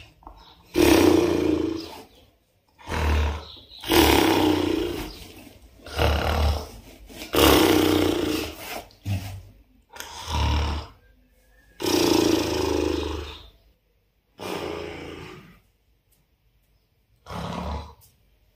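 A person snoring: a run of snores, roughly one every one and a half to two seconds, with a longer pause near the end before a last short one.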